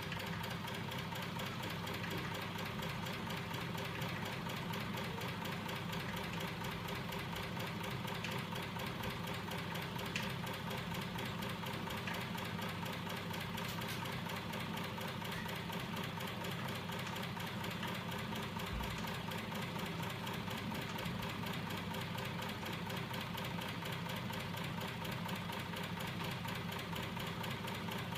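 Homemade magnet-driven crankshaft machine running steadily: small DC electric motors spinning its flywheel and linkages, giving a steady hum with a fast, even rattle.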